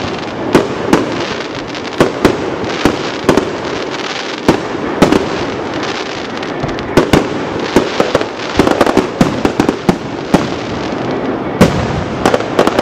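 Fireworks display: aerial shells bursting in an uneven run of sharp bangs, with continuous noise between them. The bangs come thickest in quick clusters near the middle and again near the end.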